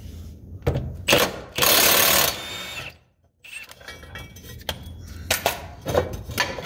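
Cordless power wrench running in one short burst of under a second, backing out a bolt from an underbody bracket. It is followed by a few light metallic clicks and knocks as the loosened bracket is handled.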